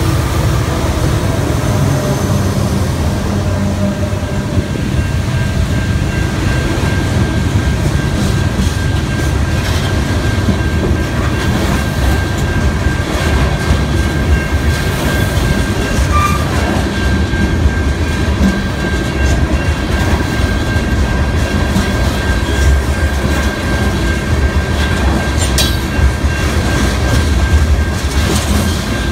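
Norfolk Southern freight train passing at close range. The trailing diesel locomotive's engine fades in the first couple of seconds, then covered hopper cars rumble by, their wheels clacking over the rail joints.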